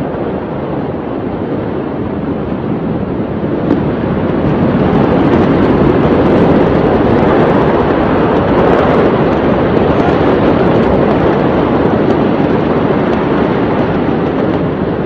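Wind rushing over the microphone: a loud, steady noise that swells a little about four to five seconds in.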